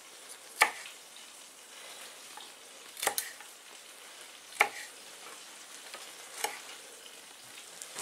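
Chef's knife striking a wooden cutting board while chopping curly parsley: four sharp knocks at uneven intervals over a steady faint hiss.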